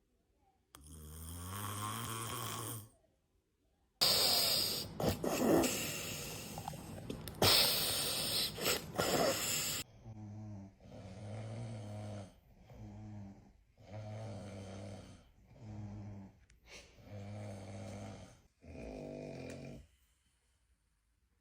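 Snoring in separate clips: first one long pitched snore, then a loud, harsh stretch of noise, then a run of about six shorter snores in a steady rhythm, roughly one every second and a half.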